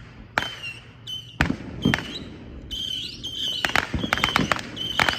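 Consumer fireworks going off: single sharp bangs about every half second, then quick rapid-fire volleys from about three and a half seconds in, with a high whistling tone between the reports.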